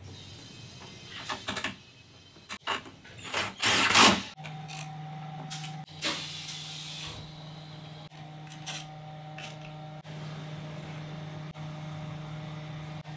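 Handling noise of wiring work under a car hood: rustling and clicks of wires, connectors and terminals being handled, loudest just before four seconds in. From about four seconds on, a steady low hum runs underneath.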